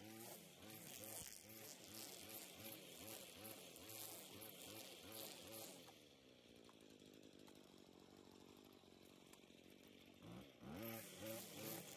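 String trimmer engine revving up and down while cutting grass, easing off to a lower, steadier run about six seconds in, then revving back up near the end.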